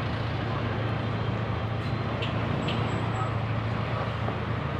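Steady low mechanical hum, like a motor running nearby, with a couple of faint light clicks about halfway through as small metal distributor parts are handled.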